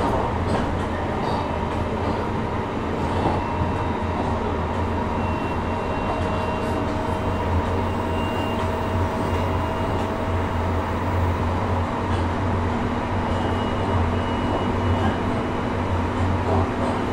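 JR Hokkaido 733 series electric multiple unit running at a steady speed, heard from inside the car: a constant rumble from wheels and track under steady motor tones, with a few faint clicks.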